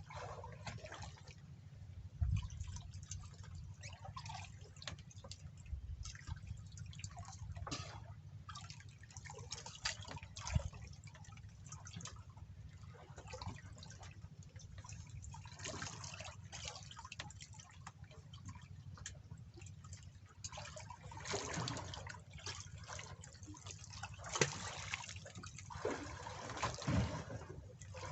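Water dripping and splashing in many irregular small drops, busier in the second half, over a steady low hum.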